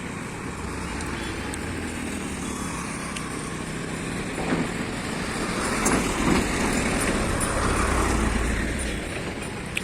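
Road traffic noise with a steady low rumble; a motor vehicle passes close, loudest from about six to nine seconds in.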